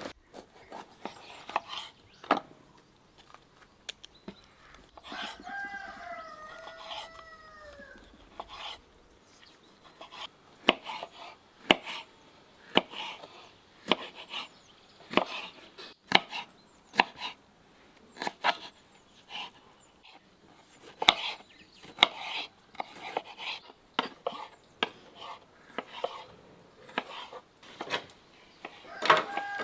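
Kitchen knife slicing a yellow bell pepper on a wooden cutting board: sharp knocks of the blade on the board, sparse at first, then about two a second from about ten seconds in. A rooster crows about five seconds in.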